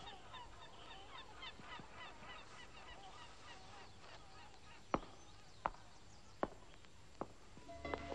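Faint calling of a flock of birds, many short calls overlapping, dying away about halfway through; then four sharp knocks, evenly spaced less than a second apart. Plucked-string music starts at the very end.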